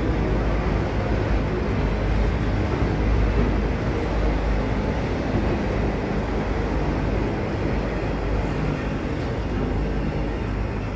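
Freight train of autorack cars rolling past close by, a steady low rumble of steel wheels on the rails.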